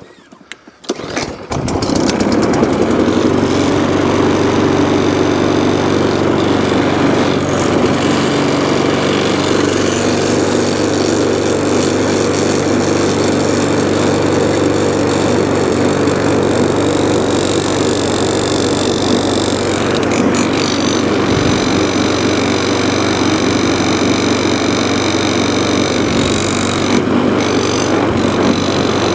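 Hand-propelled rotary lawn mower's engine catching on the pull cord about a second and a half in, then running steadily at one speed. It runs a little shaky, which the owner thinks could be a bent crankshaft or a damaged blade.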